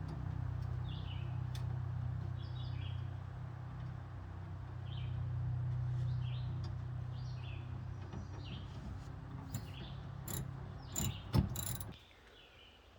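Birds chirping over a steady low hum, with a few sharp knocks near the end. The hum and the chirps cut off suddenly shortly before the end.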